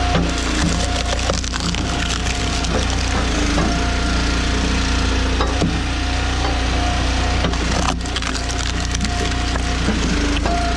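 Eastonmade Ultra hydraulic log splitter at work: its engine runs steadily while wood cracks and splinters apart under the wedge, with sharp cracks now and then.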